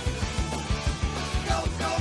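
Fast rock music with a driving drum beat and sustained pitched instrument lines.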